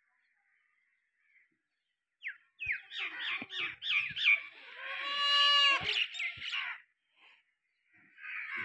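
Goat kid bleating: a run of short, quick high cries starting about two seconds in, running into one long high bleat, with another brief cry near the end.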